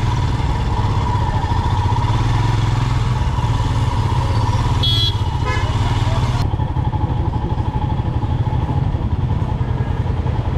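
Motorcycle engine running steadily while riding through slow, crowded traffic, with a short high horn beep about five seconds in.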